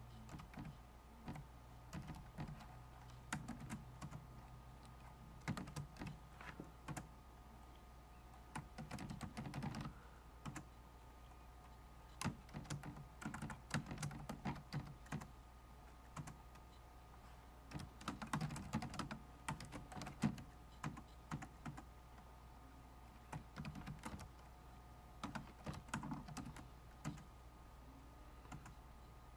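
Computer keyboard being typed on in short bursts of keystrokes with brief pauses between them, over a faint steady low hum.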